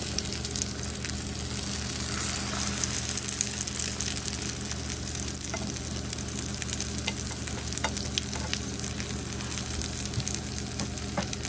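Eggplant omelettes (tortang talong) frying in hot oil in a nonstick pan: a steady sizzle with frequent small crackles and pops of spitting oil.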